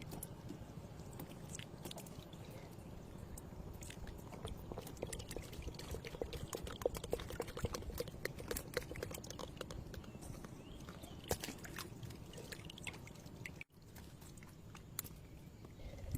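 Water pouring and dripping under a steady low rush, with many scattered clicks and a quick run of rattling clicks in the middle; the sound cuts out abruptly near the end.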